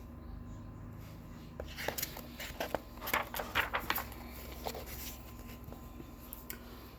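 A string of light clicks and rustles between about two and five seconds in, over a low steady hum.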